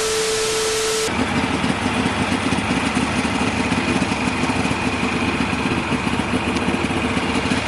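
Vehicle engine running steadily while travelling, with a dense rushing noise over it. A steady whine sounds for the first second before the engine settles in.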